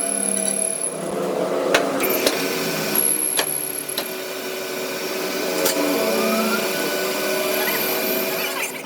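Workshop metalworking machinery running steadily, with a few sharp metallic clicks or knocks about two to six seconds in.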